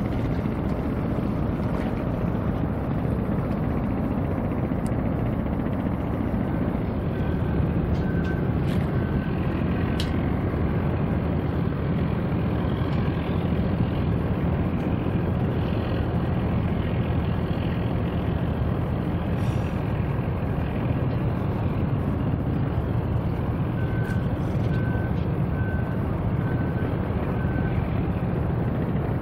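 Steady low background rumble with a backup alarm beeping in two runs of about six evenly spaced beeps, roughly two a second, one run about a third of the way in and one near the end.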